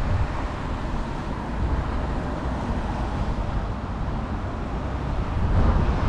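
Steady road traffic noise, with wind rumbling on the microphone. It swells slightly near the end.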